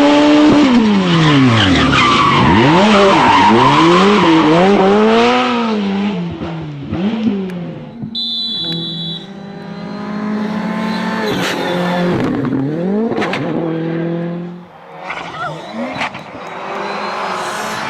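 Rally car engines at full throttle, revving up and down hard through gear changes as the cars pass, with tyre noise on the loose surface. A brief steady high whistle comes about eight seconds in, and the loudness dips briefly near fifteen seconds as one car gives way to another.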